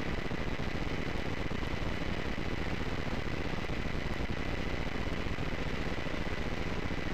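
Steady hiss and low hum of an open recording line, with a faint thin whine held on one pitch.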